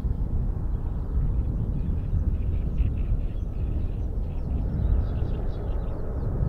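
Steady low rumble of a twin-engine jet airliner's engines as it climbs out after takeoff, with small birds chirping in short high calls over it.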